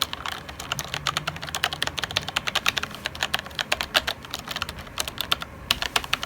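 ViewSonic KU520 mechanical keyboard with clicky blue switches being typed on quickly: a steady run of sharp key clicks, many per second.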